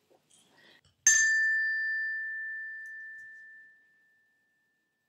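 A small bell struck once about a second in, a clear high ring that fades out over about three seconds: the read-along's signal to turn the page.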